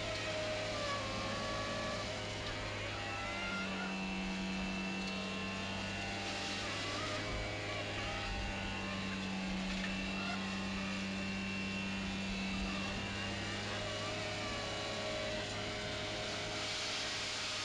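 Hydrovac excavator truck running steadily: a constant low drone, with higher whining tones from its machinery that waver slightly in pitch.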